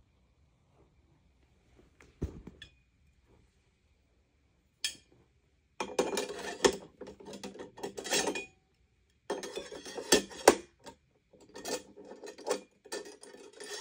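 Metal handle tube of a Sanitaire SL635B upright vacuum being pushed and twisted into its socket on the vacuum body, scraping and rattling with sharp clicks. It comes in three bouts after a quiet start.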